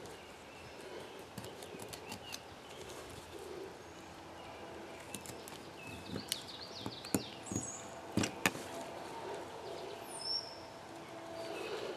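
Birds chirping faintly in the background, with scattered sharp clicks and taps, a quick cluster of them about six to eight seconds in, from a knife and gloved hands working a skinned muskrat carcass on a plastic table.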